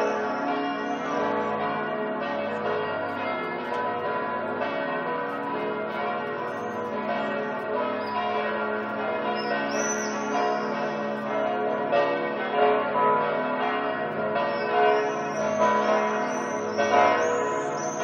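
Church bells ringing in a continuous peal, their strokes overlapping so the ringing never drops out, over a steady low hum.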